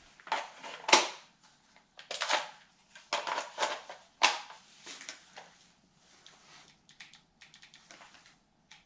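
Clicks and knocks of a metal airsoft AR-15 rifle being handled, its magazine and parts worked by hand, loudest about a second in. In the last few seconds comes a run of faint, quick clicks.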